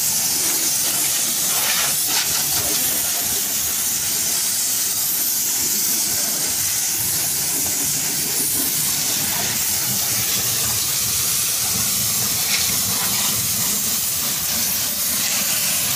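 Garden hose spray nozzle hissing steadily as a fan of water hits a car's body, rinsing the car down after shampooing.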